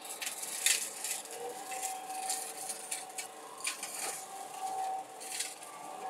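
Excavator with a brush mower head working: a steady whine runs under repeated short hissing, rattling bursts, the loudest under a second in.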